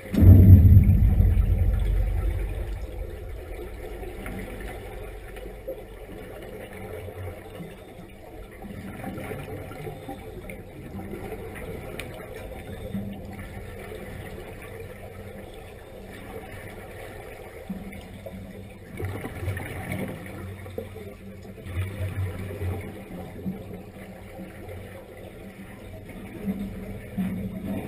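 Air bubbling and rushing underwater, heard through a submerged camera. A loud low burst about half a second in fades over a few seconds, then quieter continuous bubbling with fresh surges now and then.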